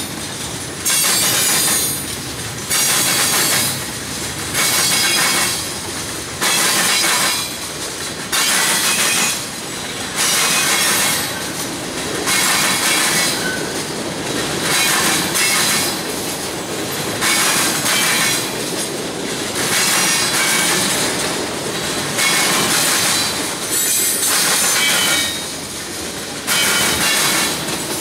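Freight car wheels banging over a railroad diamond crossing as a long train rolls through. A loud metallic clatter comes about every two seconds as each set of trucks hits the crossing's rail gaps, over a steady rolling rumble.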